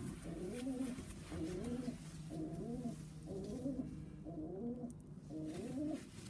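Domestic pigeons in a loft cooing: a repeated coo, about one phrase a second, each rising then dipping in pitch.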